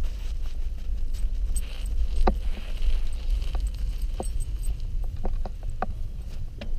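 Bicycle rolling slowly on a paved street with a steady low rumble, and irregular sharp clicks and light rattles from the bike and the leash rig, a few close together near the end.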